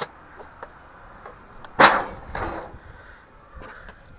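A part stripped from a DVD drive is tossed onto an aluminium scrap pile: one loud clatter about two seconds in, a smaller one just after, with light handling clicks around them.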